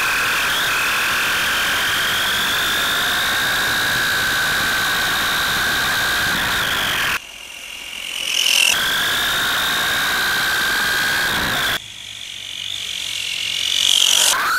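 Nitro engine of an LRP S10 Blast TX RC truggy running at high revs, a steady high-pitched whine with a buzzy edge. It drops off suddenly twice and builds back up over a second or two each time as the truggy comes closer, with a sweep in pitch near the end.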